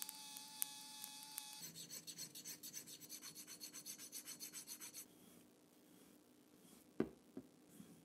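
A 3D pen's feed motor whining steadily for about the first second and a half, then a flat metal hand file rasping quickly back and forth over a small piece, about six strokes a second, for some three seconds. Two light knocks near the end.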